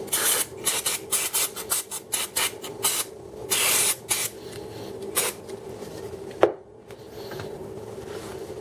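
Aerosol carburettor cleaner sprayed onto oil pump parts in many short hissing bursts, then a few longer sprays. A sharp click comes about six and a half seconds in.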